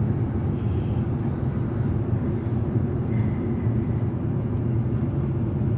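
Steady low road rumble of a car cruising at motorway speed, heard from inside the cabin: tyre and engine noise with no changes in pace.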